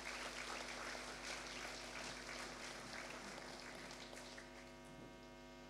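Audience applauding, dying away over about five seconds, with a steady electrical hum under it that remains once the clapping stops.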